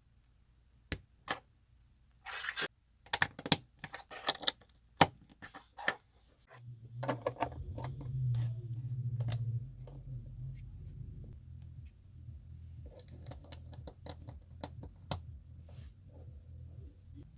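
Lego bricks clicking and rattling as plastic pieces are picked through, handled and pressed together: scattered sharp clicks and short rustling bursts. A low hum comes in about six seconds in and stays under the clicking.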